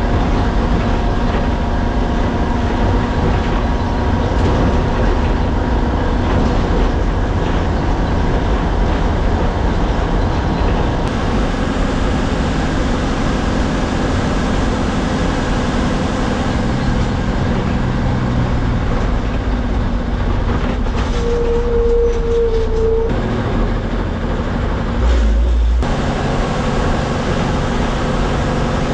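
MSRTC bus engine and road noise heard from inside the cab, a steady loud drone while driving. A brief steady tone sounds a little past two-thirds of the way through, and there is a short low bump soon after.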